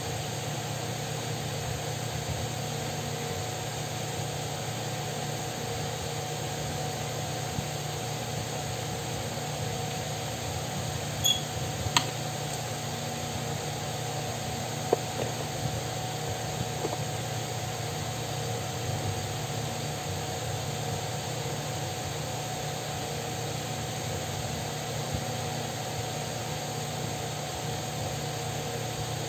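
Steady electric fan motor hum with a constant high whine. A few sharp clicks near the middle.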